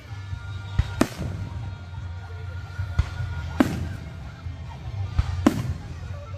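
Aerial firework shells bursting overhead: about six sharp bangs, coming roughly in pairs, each with a short echoing tail.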